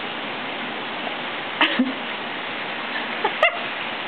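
Steady background hiss, with two brief voice sounds over it, about a second and a half in and again near the end, each starting with a click.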